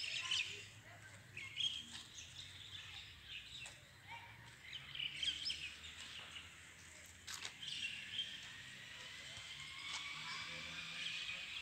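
Small birds chirping on and off, with a few sharp clicks. Over the last few seconds a faint steady tone slowly rises in pitch.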